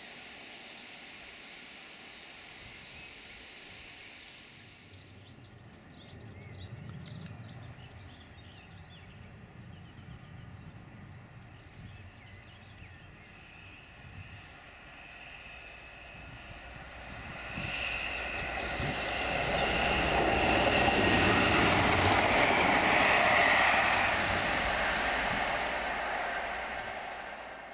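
British Rail Class 67 diesel locomotive with coaching stock approaching and passing: the engine and wheel-on-rail noise builds from about two-thirds of the way in, is loudest just before the end, then fades. Small birds are singing before it arrives.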